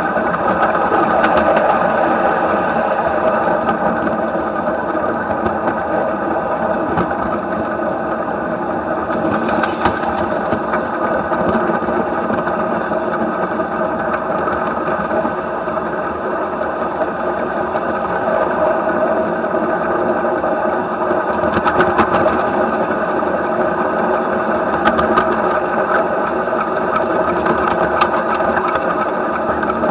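1/8-scale live steam model of a German Class 23 locomotive running along the track: a steady, rapid mechanical clatter from its running gear and exhaust, with occasional sharp clicks.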